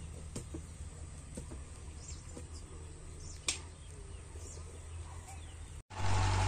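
A steel hoe chopping into lumpy farm soil, a few irregular dull strikes over a low steady hum. Near the end a tractor engine cuts in, running steadily and much louder.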